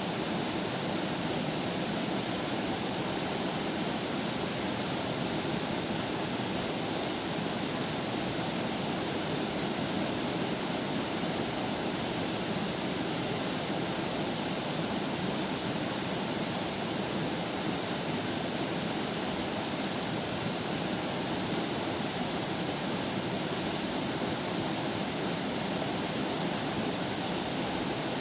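Running river water: a steady, even rushing with no breaks.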